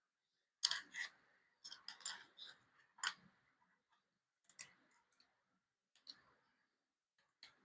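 Faint clicks and light knocks of bicycle handlebar and stem parts being handled as the bar is set into the stem clamp: a quick cluster of clicks in the first three seconds, then a few single ones spaced out.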